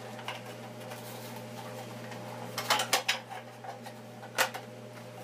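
A hard plastic CNC spindle dust boot being handled: a quick cluster of sharp plastic clicks and knocks about halfway through and another single click near the end, over a steady low hum.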